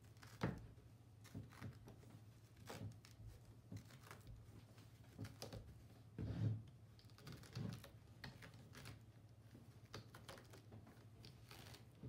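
Monk's cloth being tugged and shifted on the pins of a gripper strip frame: quiet, irregular scratchy rustles and soft taps, with a faint steady low hum underneath.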